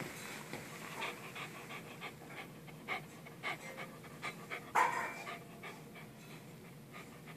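Small dog panting with its mouth open: quick, uneven breaths about two a second, with one louder breath a little past the middle.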